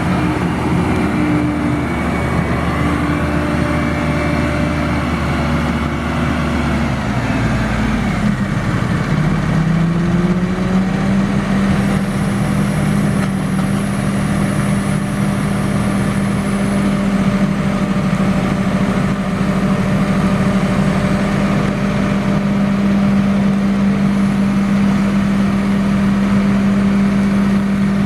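Engine of heavy tree-service equipment running steadily. About eight to ten seconds in, its pitch rises, and it then holds at the higher speed.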